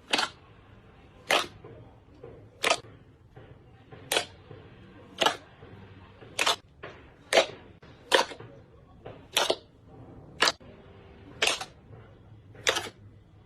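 Slime being pressed and squished by hand, giving sharp popping clicks about once a second, about a dozen in all.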